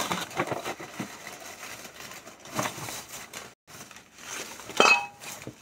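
Handling noise from a carved terracotta clay pot and its lid: rustling and small knocks as they are picked up and moved, with one sharper clay clink about five seconds in.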